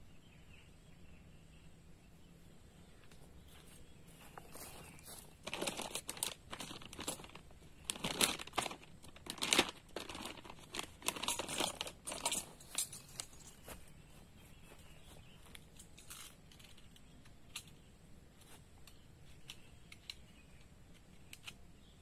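Crinkling and rustling, as of something dry being handled or crumpled: a run of irregular crackles from about five to thirteen seconds in, then a few faint isolated ticks.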